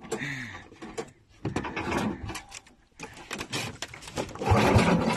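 Clicking and clattering of a red plastic pitcher's lid being handled on a wooden boat's slatted floor, with a louder rough sound near the end.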